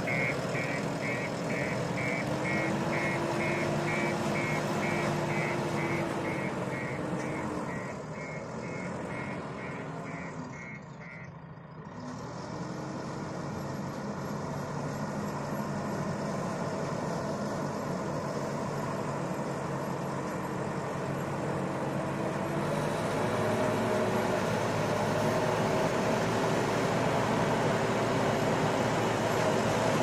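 JCB 3DX backhoe loader's diesel engine running and revving as the machine backs up, its reversing alarm beeping rapidly. The beeping stops about eleven seconds in; the engine grows fainter, then louder again as the machine drives forward.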